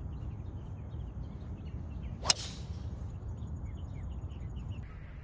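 Golf driver striking a ball: a short swish rising into a single sharp crack of impact a little over two seconds in.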